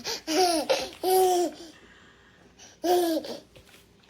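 A baby laughing and squealing in three short, high-pitched bursts, with a quiet gap of over a second before the last one.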